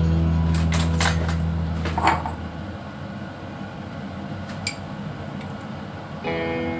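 A spoon clinking against a jar of chocolate spread and the pan: a few sharp clicks in the first two seconds, the loudest about two seconds in, and one more near the middle. Guitar music fades out at the start and comes back near the end.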